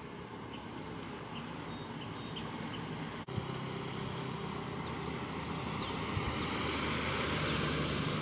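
Toyota Camry with a 2AZ four-cylinder engine driving toward the camera on a concrete road, its engine and tyre noise growing louder as it nears. Insects chirp in short repeated bursts behind it, and the sound breaks briefly about three seconds in.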